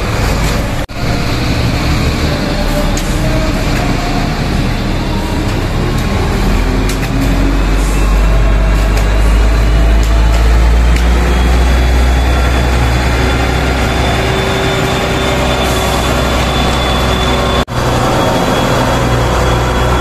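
Concrete mixer truck's diesel engine running, its pitch rising and falling as it revs. A deep steady rumble grows louder from a few seconds in and holds, with two brief breaks in the sound.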